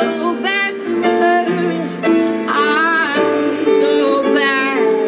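A female voice singing a slow song with piano accompaniment. The sung phrases slide and bend in pitch over sustained piano chords.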